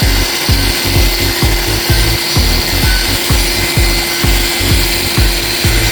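Floor grinding machine running over a terrazzo floor, a steady rasping grind, with electronic music and its steady deep beat mixed underneath.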